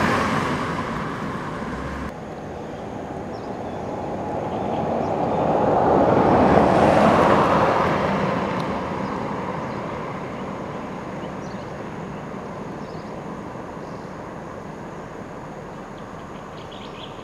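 A vehicle passing by outdoors, its sound swelling to a peak about seven seconds in and then fading slowly, over steady background noise.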